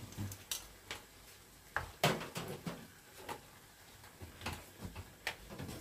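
Wooden spatula stirring and scraping squid stir-fry in a frying pan: scattered soft clacks and scrapes, the loudest about two seconds in.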